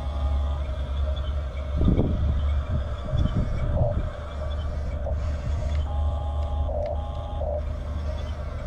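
Huina 1569 RC bulldozer running, a steady low motor hum with short electronic beeping tones. A few heavier knocks and scrapes come between about two and four seconds in.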